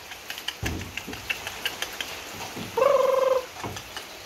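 A single pitched animal call about three seconds in, lasting about half a second and steady in pitch. Before it come light scattered clicks and taps of hands working a mixture in a steel bowl.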